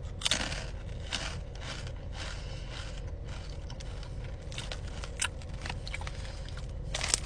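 Crunching of a Takis rolled tortilla chip being bitten and chewed, with irregular crisp crunches about once a second.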